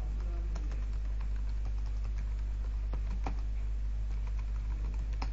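Computer keyboard typing: irregular, scattered keystroke clicks as a terminal command is entered, one clearer click about three seconds in. A steady low electrical hum runs underneath.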